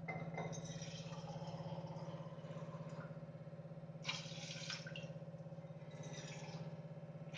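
Water poured from a steel tumbler onto chickpeas in a steel pot, with a short splash about four seconds in and fainter trickling near the start, over a low steady hum.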